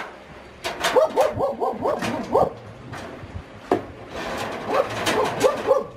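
Chickens squawking in alarm as they are grabbed at in their wire-mesh coop: two quick runs of short, sharp calls, about five a second, with the metal mesh rattling and clicking.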